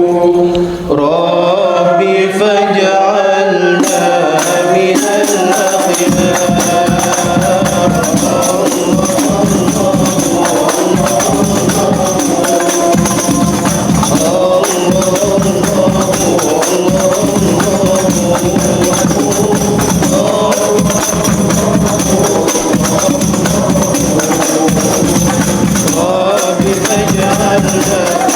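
Hadroh ensemble: voices chanting a sholawat melody, joined about four seconds in by rebana frame drums playing a dense, fast rhythm under the singing.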